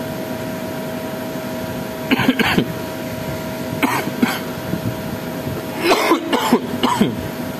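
A man clearing his throat and making short vocal noises three times, over a steady room hum.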